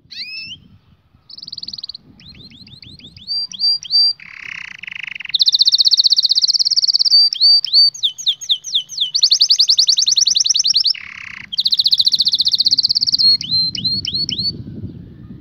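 Domestic canary singing a long, varied song: fast trills and strings of rising whistled notes, broken twice by a short harsh, buzzy roll lower in pitch, about four seconds in and again about eleven seconds in.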